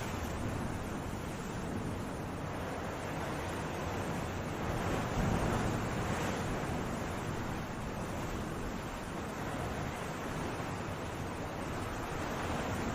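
Sea waves breaking and washing in a steady rush of surf, swelling a little about five seconds in.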